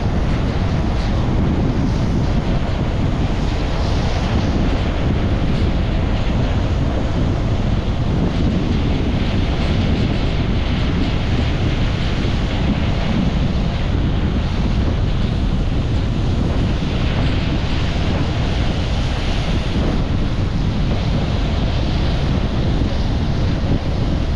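Steady low rumble and hiss of a moving car's road and wind noise, with wind buffeting the microphone.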